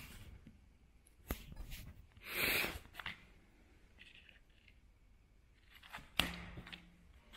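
A glossy paper brochure being handled and turned over by hand: faint rustling and a few sharp clicks, with a louder swish about two and a half seconds in and a sharp click about six seconds in.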